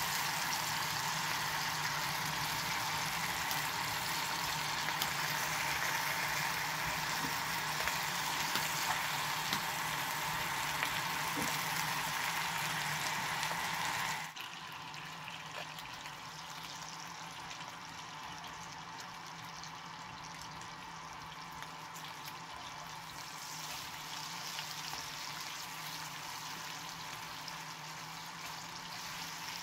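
Bacon frying in a small pan over a Jetboil canister-gas burner: a steady sizzling hiss from the fat and the burner flame. Just before halfway it drops abruptly to a quieter, steady sizzle.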